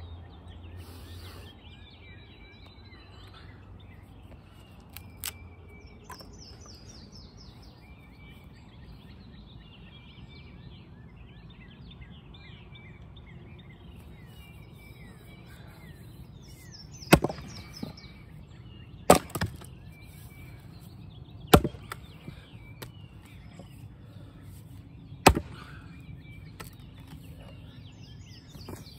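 An axe splits knotty red maple firewood rounds: four sharp strikes come in the second half, with a couple of faint knocks earlier. Birds chirp in the background.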